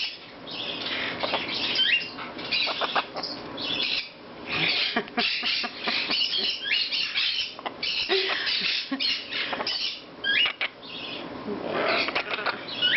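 Two young Amazon parrots, a double yellow-headed and a yellow-crowned, making harsh, raspy squawks and chatter in a near-continuous run of bursts with a few short breaks.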